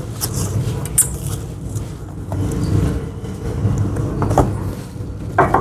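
Plastic shrink wrap on a smartphone box being slit with a small blade and pulled off, with scattered crackles of the film and taps of the cardboard box. A steady low rumble runs underneath.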